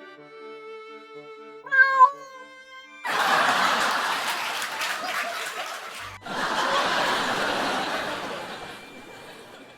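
A cat meows twice in quick succession over soft background music about two seconds in. Then a loud even noise takes over for several seconds, breaks off sharply midway, starts again and fades out.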